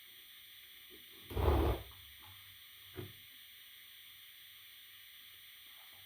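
A steady faint hiss, with one dull thump about a second and a half in and a softer tap near three seconds.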